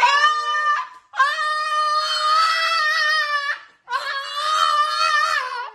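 French bulldog howling in long, drawn-out calls: one ends just under a second in, then two more of about two seconds each follow with short breaks between, the pitch held fairly steady.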